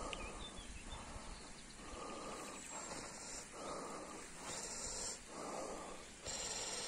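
A man breathing heavily in and out close to the microphone, a soft hissing breath a little under once a second, while he lifts a carp in a weigh sling onto a hanging scale.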